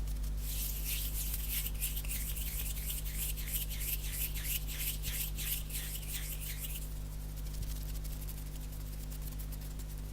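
Dry bare hands rubbed together fast and close to the microphone: a quick, even swishing of skin on skin for about six seconds. The rubbing stops near seven seconds in, leaving only faint light ticks of fingers and nails.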